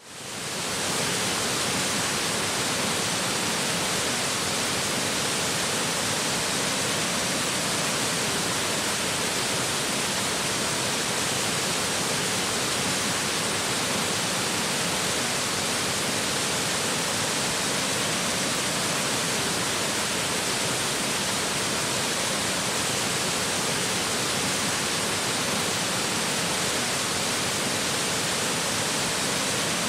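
Waterfall rushing steadily as water pours and splashes over rock, fading in over the first second.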